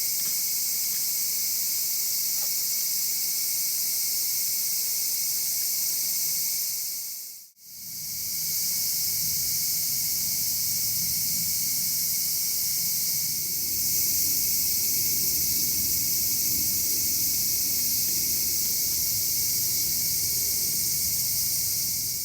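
Night insect chorus: crickets and other insects trilling steadily as a high, even hiss. It fades out and back in about seven seconds in.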